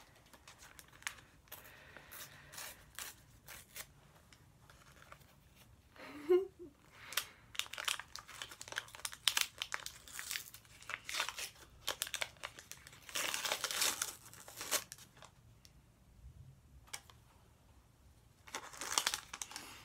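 Sticker packet wrapper being crinkled and torn open by hand, in irregular bursts of rustling and tearing, the longest stretch about two-thirds of the way through.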